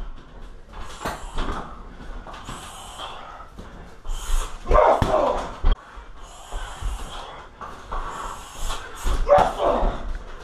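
Kicks and punches thudding into a 60 kg heavy bag, with short sharp grunts on the strikes. They come in two flurries, about four seconds in and again near the end.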